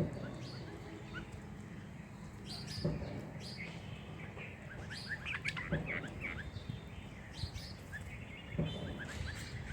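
Small birds chirping in short runs of high twittering calls, busiest around the middle and again near the end, with a few dull thumps in between.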